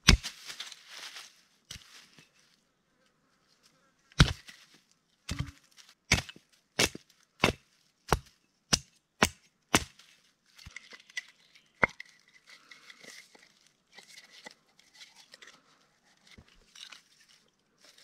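A digging tool striking into the earth of a pit: a scrape at the start, then a steady run of about nine sharp blows, roughly one and a half a second, followed by lighter scraping and knocks.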